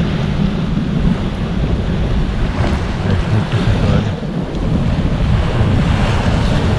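Wind buffeting the microphone in a loud, uneven rumble, over the wash of small waves and water lapping in the shallows.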